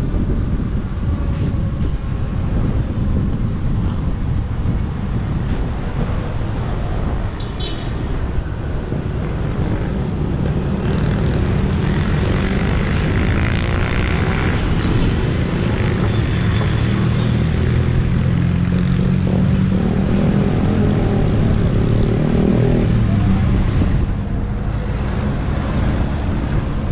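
Wind buffeting the action camera's microphone on a moving electric scooter, a steady low rumble. From about halfway through until near the end a motor vehicle's engine runs close by, the loudest sound in that stretch.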